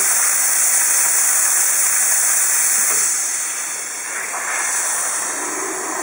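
Steam wand of a homemade dual-boiler espresso machine blowing steam into the open air: a loud, steady hiss that eases a little about three and a half seconds in.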